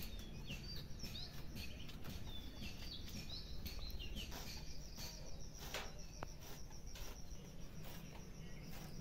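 Small birds chirping in short, quick rising and falling calls, joined about halfway by a steady high-pitched insect note. A few faint clicks come from hands working the warp threads on a handloom.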